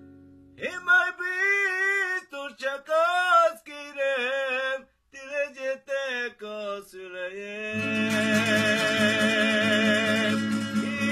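A slow Romani hallgató song: a male voice sings alone in drawn-out phrases with a heavy, wavering vibrato. About seven seconds in, a fuller accompaniment with guitar comes in beneath the voice.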